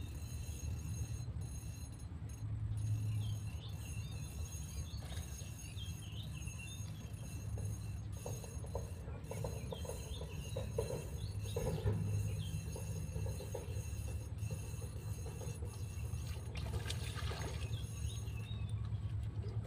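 Small birds chirping over a steady low rumble. Between about 8 and 14 seconds in comes a run of rapid clicking from a fishing reel being wound while a hooked fish is played on a bent rod.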